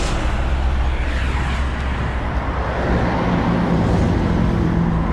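Honda Accord CL7 running with an aftermarket Modulo exhaust, a steady low exhaust note at idle whose tone grows clearer about three seconds in.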